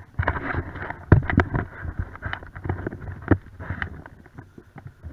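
Handling noise of a body-worn camera: camouflage clothing and gear rustling and rubbing against it, with irregular knocks and thumps as the wearer moves over the forest floor. It gets quieter near the end.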